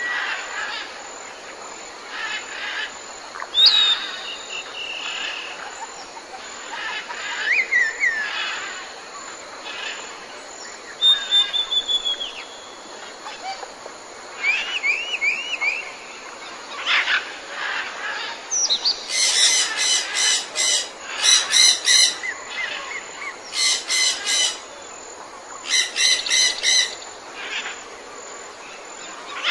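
Jungle ambience of several birds calling: scattered chirps, whistles and short rising and falling calls over a soft steady background. In the second half come four loud bouts of a rapid, rattling repeated call.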